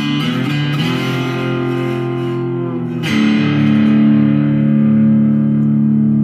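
Intro music on guitar: chords played, then a new chord struck about three seconds in and left ringing.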